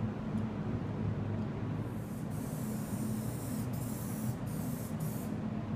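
Aerosol spray can of U-POL E-Coat #12 hissing as it sprays, starting about two seconds in, then in shorter passes with brief pauses near the end.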